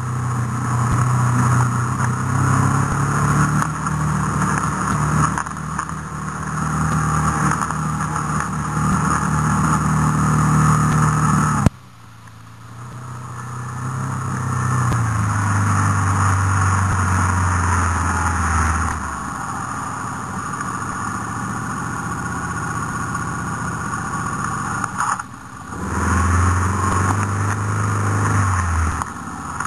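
Off-road vehicle engine running under load along a dirt track, its note rising and falling with throttle and gear changes. The sound drops off suddenly about twelve seconds in, then builds again, with a short dip near the end.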